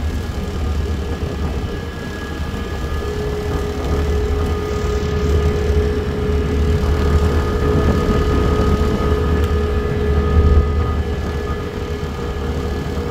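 Cog railway train running, heard from inside the car: a steady low rumble with a steady whine from the drive that swells a few seconds in and fades near the end.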